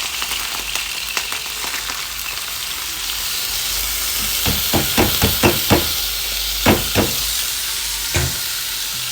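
Washed rice and lentils sizzling steadily in hot ghee in a pot. Around the middle comes a run of quick knocks as the pot is stirred, then a few single knocks.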